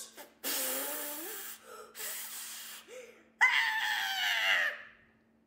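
A woman's voice acting out labour: breathy straining groans with a rising pitch, then a loud, high-pitched cry starting about three and a half seconds in and fading out about a second later.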